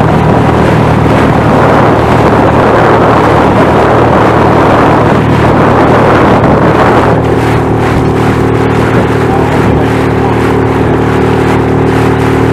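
Yamaha outboard motor pushing an inflatable boat at speed, with water rushing past the hull and wind on the microphone. About seven seconds in the rush of wind and water drops back, and the engine's steady note comes through more clearly.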